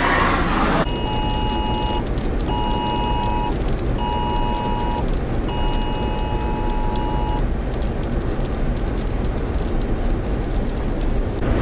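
An emergency alert attention tone, two pitches sounding together, beeps four times: three short beeps and then a longer one. Under it runs a steady rush of wind and vehicle noise.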